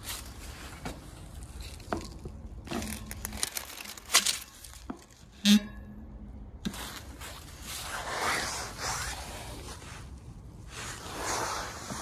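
Footsteps and rustling in dry leaves with scattered handling knocks, and one sharp knock about five and a half seconds in. No air-conditioner fan or compressor is heard running.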